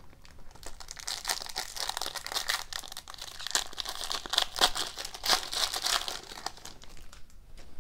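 Silver foil wrapper of a 2018-19 Synergy hockey card pack crinkling as it is torn open and the cards are slid out. A dense crackle that dies away about seven seconds in.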